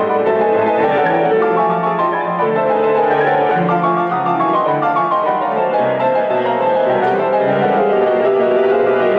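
Orchestra and grand piano playing together, with the piano to the fore in a continuous run of notes.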